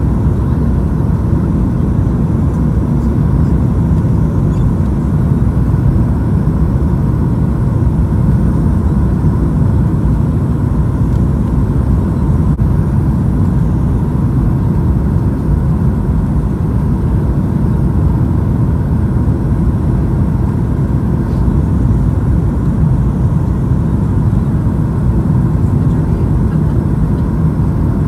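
Steady cabin noise of a Boeing 737-900ER on approach with flaps extended, heard from a window seat over the wing: an even low rumble of airflow and the CFM56-7B engines, with a faint steady tone above it.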